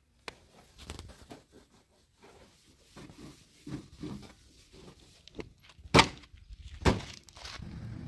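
A cloth rubbing and wiping over a tractor's painted metal hood, with light scattered knocks. Two sharp knocks about a second apart come near the end, followed by a steady low rumble that sets in just before the close.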